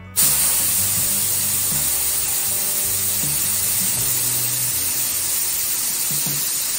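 Air hissing steadily out of a tubeless mini-bike tire's valve stem as its valve core is held down with a screwdriver, starting suddenly a moment in. The tire is being let down after being pumped to 38 PSI to seat the bead.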